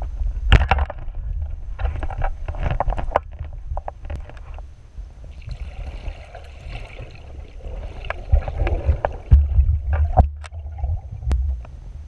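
Muffled underwater noise heard through a camera's waterproof housing: a constant low rumble of moving water, with scattered sharp clicks and crackles and short hissy swishes as the diver swims.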